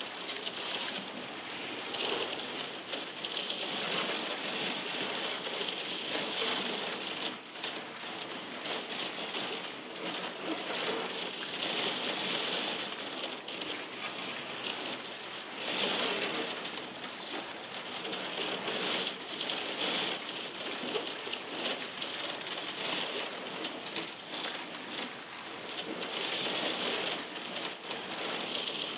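Dense crackling texture made from a recording of thawing pond ice sheets cracking and breaking over a rock, computer-processed into a granular spray of tiny clicks that sounds like rain. Louder swells come and go every few seconds.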